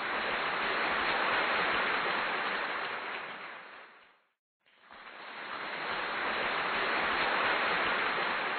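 Surf-like rushing noise, like an ocean wave sound effect, that swells and fades away, drops to dead silence for a moment about four seconds in, then swells again.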